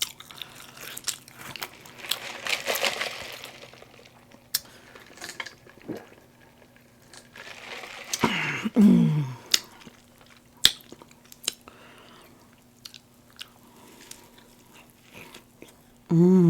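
A person chewing and biting into a McDonald's chicken sandwich, with irregular wet clicks and crunches. There is a short hum about halfway through.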